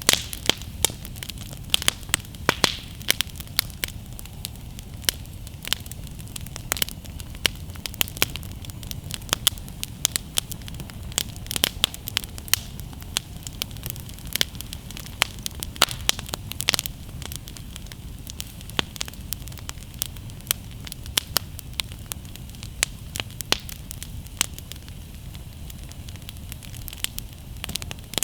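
Wood campfire crackling, with many sharp, irregular pops over a low steady rumble from the flames.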